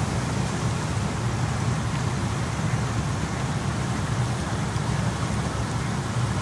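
Steady rushing noise of heavy rain falling, with a strong low rumble underneath.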